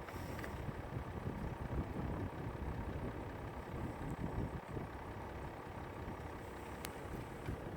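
Low, steady rumble of an idling vehicle engine, with a single sharp click about seven seconds in.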